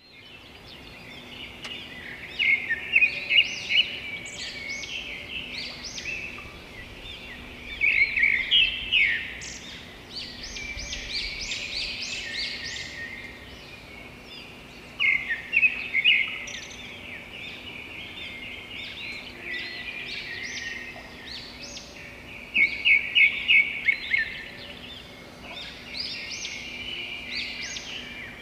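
Small birds chirping and calling continuously, with four louder bursts of quick, rapid chirps spread through the stretch.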